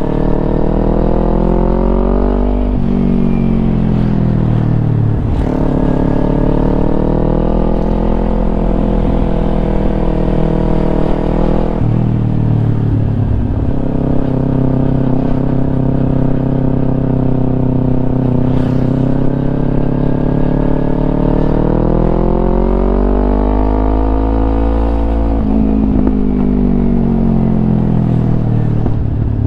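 Kawasaki Ninja 250 with a Yoshimura aftermarket exhaust, ridden under acceleration. The exhaust note climbs in pitch and drops sharply at each gear change, several times, with a steadier stretch of cruising in the middle.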